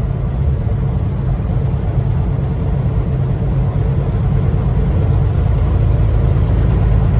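Steady low engine and road rumble heard inside a semi-truck's cab while it cruises along a highway.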